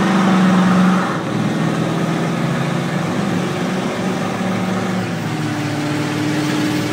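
Truck engine running while pulling away and driving, with road noise; the engine note changes about a second in and again a little after five seconds.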